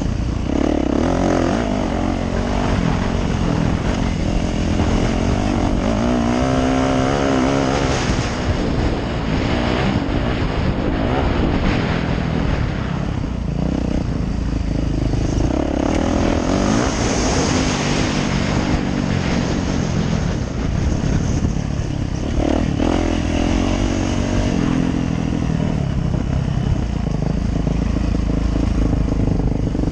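Yamaha YZ450F dirt bike's four-stroke single-cylinder engine under way, its pitch rising and falling as the throttle is opened and closed. Recorded on a helmet camera, with constant rushing noise.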